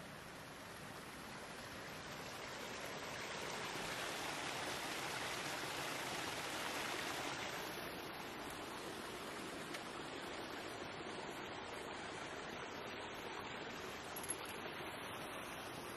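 A small woodland brook rushing over rocks, a steady wash of water that swells louder a few seconds in and eases off slightly after the middle.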